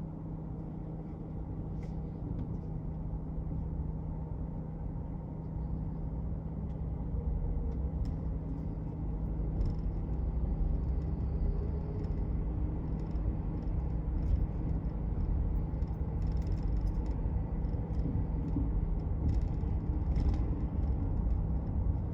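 2019 Ford F-150 SuperCrew rolling slowly over uneven pavement, heard inside the cab: a steady low road and drivetrain rumble that grows a little louder, with scattered short knocks from about eight seconds in. The owner hears a thud whenever the truck rocks side to side and suspects a suspension issue.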